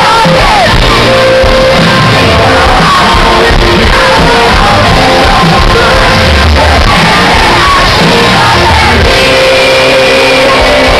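Live band with vocals, electric guitar and drums playing loudly, with a crowd shouting and singing along.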